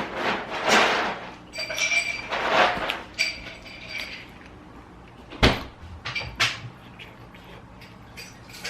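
Close-up eating and handling noises: rustling and scraping, a squeaky stretch about two seconds in, then a couple of sharp knocks near the middle.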